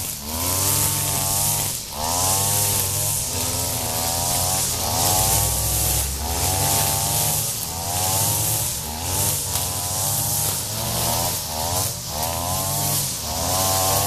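Two petrol string trimmers cutting grass, their engines revving up and easing off about once a second as the heads are swung through the grass, with a hiss from the spinning line.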